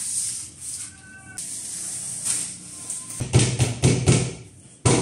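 Adhesive vinyl sheet and its paper backing rustling and crinkling as it is peeled and laid onto a board, then hands pressing and rubbing it down in loud irregular strokes from about three seconds in.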